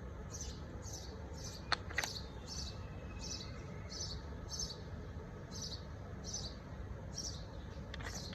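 A small bird chirping over and over, a short high chirp about twice a second, over a steady low rumble. Two sharp clicks come about two seconds in.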